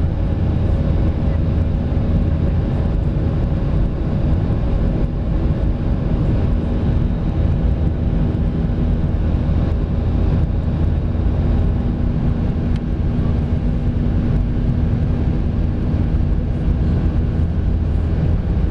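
Steady engine and airflow noise inside a passenger aircraft's cabin during the climb after takeoff: a deep, even rumble with a constant low hum running through it.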